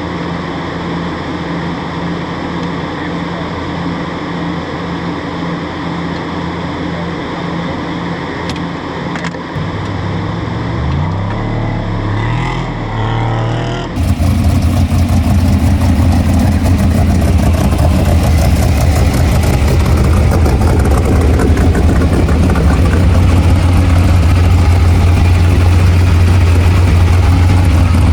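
Off-road race truck engine running steadily at low revs, its pitch wavering a little past a third of the way in. About halfway through the sound jumps suddenly to a much louder engine running hard at steady high revs, with a rough rushing noise over it.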